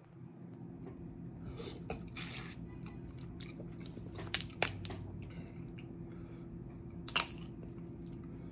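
Snow crab leg shells cracking as they are broken open, with chewing between. A few sharp cracks come a little past the middle and one more later on.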